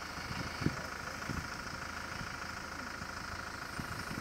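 Iveco Daily 4x4's diesel engine running steadily at low revs as the truck crawls over rough, rutted ground, with a couple of low thumps about a second in.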